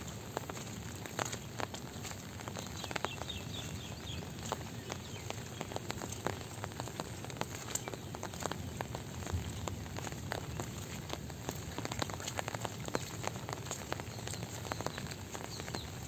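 Light rain falling: a steady patter with many irregular sharp drop hits.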